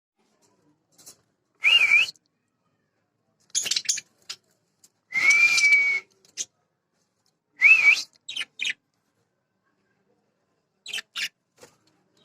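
Budgerigars calling: a string of short whistles and scratchy chirps with gaps between them, including a wavering whistle near the start and one held steady whistle of nearly a second about midway.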